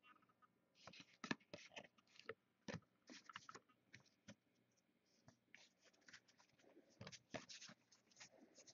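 Faint light clicks and short scrapes of trading cards being handled, slid and tapped onto a stack as they are sorted. The handling comes in two clusters with a quieter gap in the middle.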